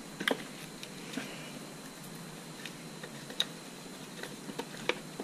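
Plastic wiring-harness connectors and an electronic ignition module being handled by hand: a few separate sharp clicks and small knocks spread through, with faint rustling between.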